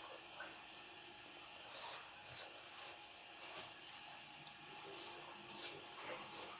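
Faint eating sounds: soft chewing and a few small mouth clicks over a steady low hiss.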